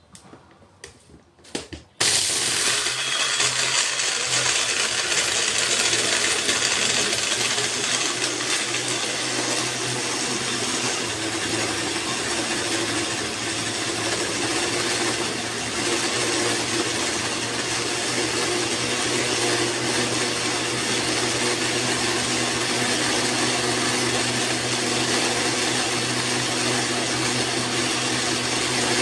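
Red bullet-style personal blender: a few clicks as the cup is pressed onto the motor base, then about two seconds in the motor starts and runs at a steady speed with a constant hum, blending water, lichees and crushed ice into a drink.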